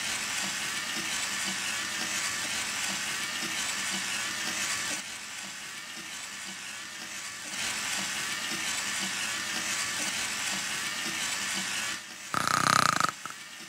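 Toy robot dinosaur's motors and gears whirring steadily as it moves, easing off briefly midway. Near the end a short, loud buzz cuts in.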